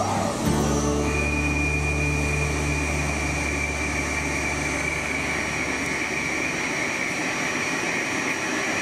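Tormach Slant Pro 15L CNC lathe running under coolant, its spindle turning a part while a turret tool cuts into the end: a steady low hum with coolant spray hiss, joined about a second in by a steady high whine.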